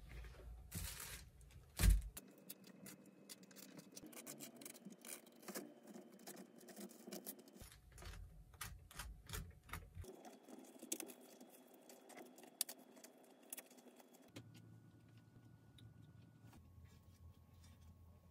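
Close-up kitchen handling sounds while making a sandwich: a slice of toast set down with a soft knock about two seconds in, then many small scrapes and taps of a knife spreading over the toasted bread, with light rustles of the plastic sheet beneath.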